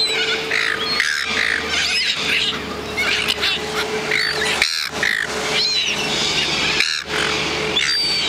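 A crowd of birds calling over one another, many short chirps and cries in quick succession, with a faint steady hum underneath.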